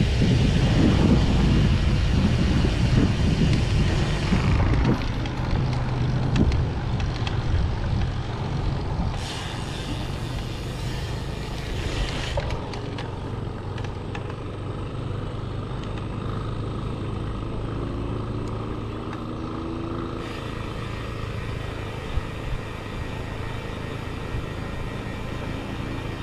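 Motor traffic with wind rumbling on the microphone, heaviest in the first few seconds; a steady low engine hum runs under it, and one engine rises in pitch briefly past the middle.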